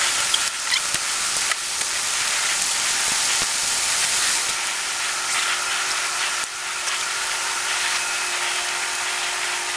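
Rain falling steadily, a dense even hiss.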